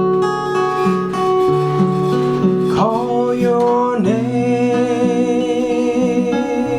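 Acoustic guitar playing a picked pattern, joined about three seconds in by a wordless voice that slides up into a long, wavering held note.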